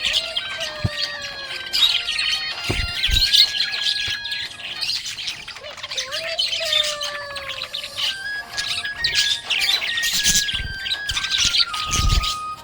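Budgerigars chirping and warbling in a rapid, continuous stream of high chirps and trills.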